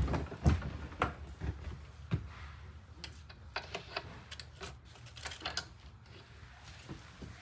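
Irregular clicks and knocks of a folding bed-lift chair being handled and swung back up from its flush-to-the-wall position, with the loudest knocks right at the start and about half a second in.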